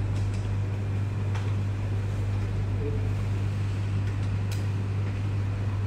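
A steady low hum, with a few faint clicks and brief faint voices.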